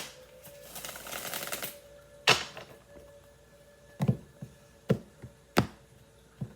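A short rustle, then about six sharp taps or clicks at uneven spacing, over a faint steady tone.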